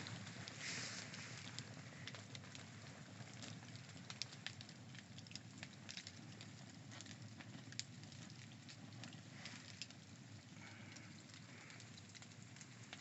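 Wood campfire crackling faintly, with frequent irregular sharp pops over a soft steady hiss.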